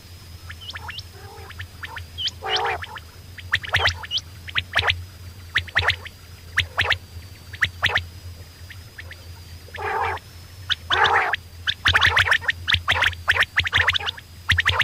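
Quails calling in a run of short, sharp chirps and calls, bunched together and busiest in the second half, over a steady low hum.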